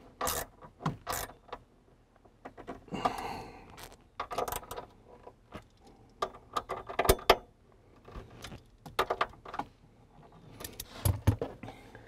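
Light metallic clicks, clinks and small rattles as hands handle the dead pedal's nuts and the grounding-wire terminals on the footwell mount, in irregular bursts with a short scrape about three seconds in.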